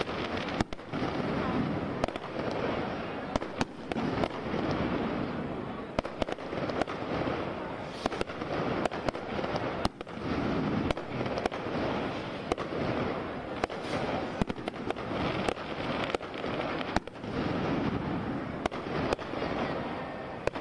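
Fireworks going off in the sky: frequent sharp bangs and crackling pops at irregular intervals over a continuous background din.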